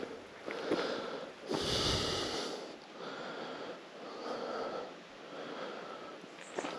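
A person breathing hard from the exertion of climbing a steep uphill path, about one breath a second, with one louder, deeper breath about two seconds in.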